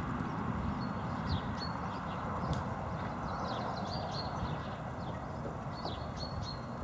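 A ridden horse's hooves on grass turf as it moves around the paddock, with short bird chirps several times over a steady low rumble.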